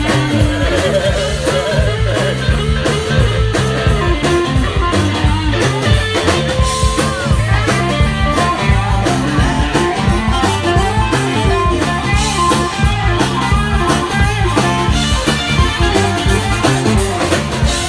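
Live band playing with electric guitars over a steady drum-kit beat.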